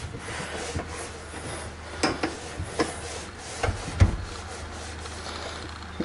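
Microfibre cleaning cloth rubbing and wiping over a microwave's inside surfaces, with several light knocks, the loudest about four seconds in.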